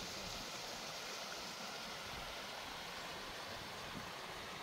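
Spring-fed creek water running steadily, an even rushing hiss.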